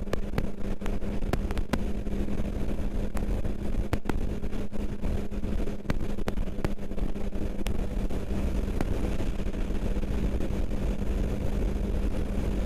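TVS Apache RR310's single-cylinder engine running steadily at highway cruising speed, a constant drone with a steady hum, with scattered sharp clicks over it.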